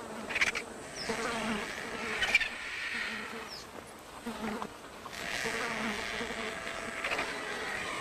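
Flies buzzing around a dead hippopotamus swollen in the heat, with a couple of short, sharper sounds about half a second and two and a half seconds in.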